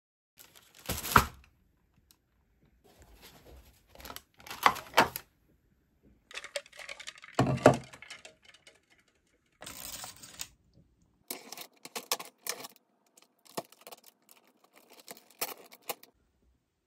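Takeout food packaging being handled: paper wrapping rustling and a plastic container lid being peeled open. It comes in scattered bursts of crinkling, clicks and knocks.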